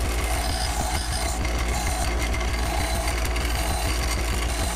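Craftsman 1/2 HP bench grinder running with a steady low hum and a hiss as a small metal extractor nut is held against the wheel to grind down its corners.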